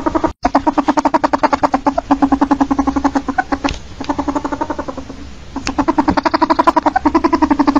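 Ferret calling: a fast, even run of short low clucks, about ten a second. It cuts out for an instant about a third of a second in and is weaker for a second or so past the middle.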